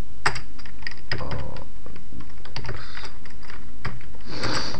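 Typing on a computer keyboard: irregular, uneven key clicks.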